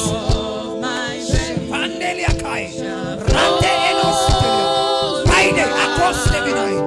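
Gospel worship music: voices singing over sustained keyboard chords, with occasional soft low thumps.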